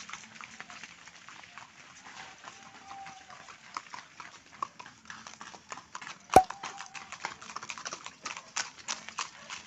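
Horse hooves clopping irregularly on a gravel dirt road as a ridden horse and then a horse-drawn cart pass by. One sharp crack about six seconds in is louder than everything else.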